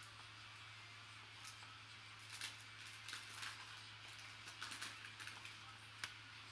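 Faint rustling and light clicks of baseball cards being flipped through and slid against one another by hand, over a low steady hum.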